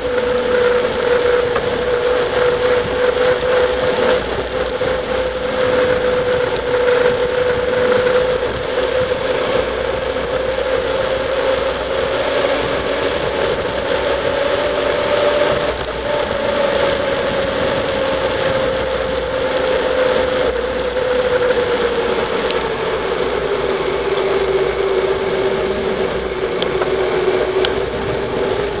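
Mountain bike rolling fast down a tarmac road: a steady hum from the tyres and hub that rises and falls slowly with speed, over wind rushing on the microphone.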